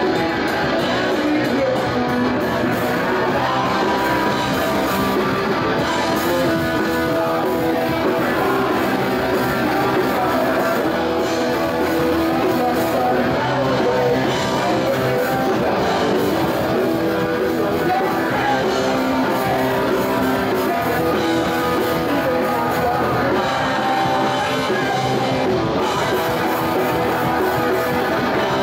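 Rock band playing live, with electric guitars and a singer over a steady full-band backing.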